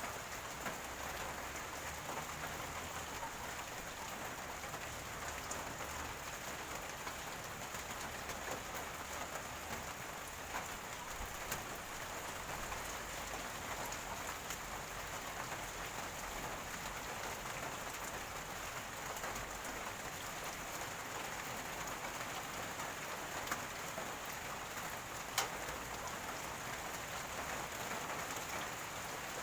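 Steady rain falling, an even hiss with now and then a single sharp drop striking, the sharpest about 25 seconds in.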